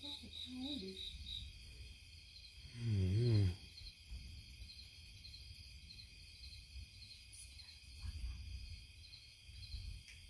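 Night insects such as crickets chirping steadily in a high, pulsing trill. About three seconds in, a brief low warbling sound rises over it.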